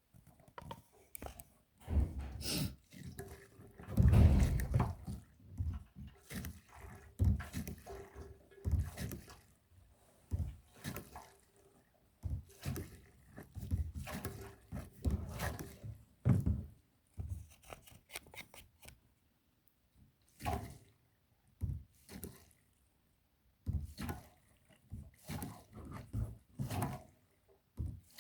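Hand-operated kerosene siphon pump transferring fuel from a jerrycan into a heater's tank: irregular pumping thunks and handling knocks with the fuel gurgling and dripping through the hose.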